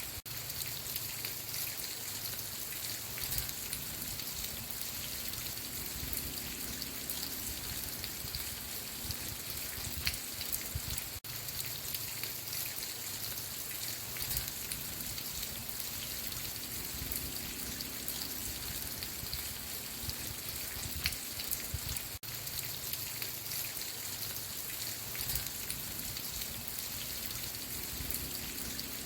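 Steady rain ambience: an even hiss of rainfall with many separate drop hits. It cuts out for an instant twice.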